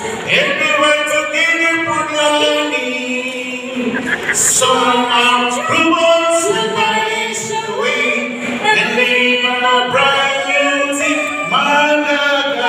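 A man singing unaccompanied into a microphone, in long held notes that waver slightly.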